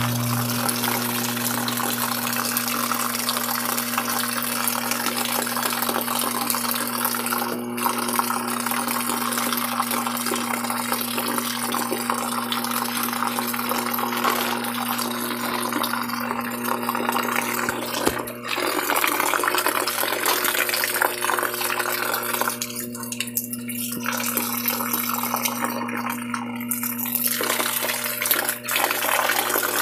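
Top-loading washing machine filling: water pours steadily into the drum over the clothes and detergent, with a steady low hum beneath.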